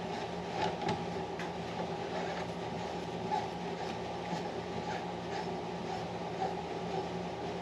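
Light metal clicks and scrapes of a chuck and thread adapter being handled and fitted onto a mini lathe's spindle, over a steady hum.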